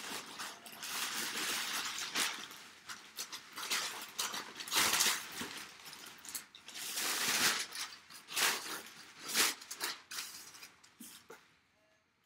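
Crumpled brown packing paper rustling and crinkling in irregular bursts as hands dig through it in a cardboard box, dying down near the end.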